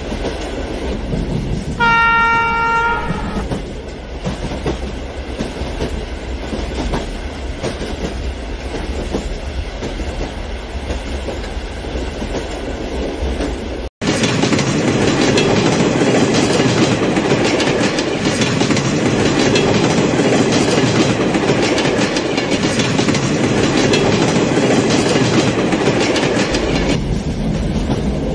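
A large-scale model diesel passenger train runs on track with a steady rumble and rattle of wheels and motors. A single horn blast of about a second comes about two seconds in. About halfway the sound drops out for an instant and returns louder and closer as the locomotive passes, then falls back near the end.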